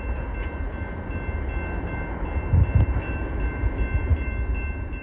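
Distant freight train rumbling as it moves away down the line, with a low rumble and a brief stronger surge a little past halfway, and faint steady high tones above.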